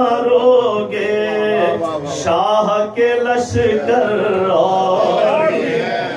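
A man's voice chanting verse in a melodic, drawn-out style, holding and bending long notes.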